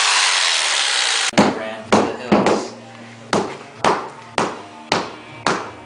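A power saw finishes a cut and stops about a second in. Then come about eight sharp knocks, roughly two a second, like laminate flooring planks being tapped together with a hammer.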